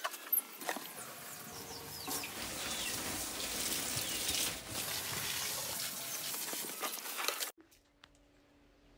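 Steady rush of running water with a few short bird chirps over it; it cuts off abruptly about seven and a half seconds in.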